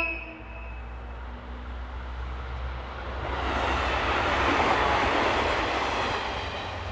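A train passing close by, its wheels running on the rails. The sound builds from about three seconds in, peaks around four to five seconds and then fades as the train moves away. A brief high tone sounds right at the start.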